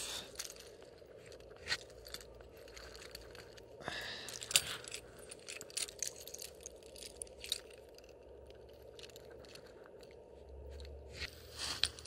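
Wild cherry bark being prised and peeled off a branch: scattered small cracks, scrapes and clicks, with a louder scraping rustle about four seconds in.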